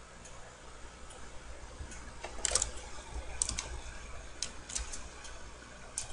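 Scattered clicks of a computer keyboard and mouse in use, a few single clicks and short clusters, over a steady low hum.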